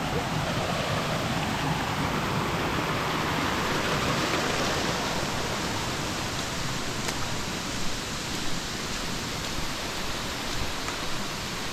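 Steady rush of running water, a stream or small waterfall, swelling slightly a few seconds in and then easing, with a few faint ticks in the later part.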